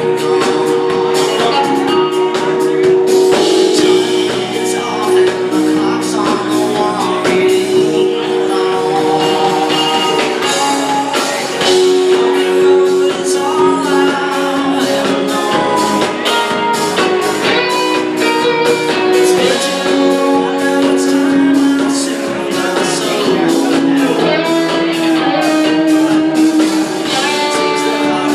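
Rock band playing live, guitars over a steady drum beat.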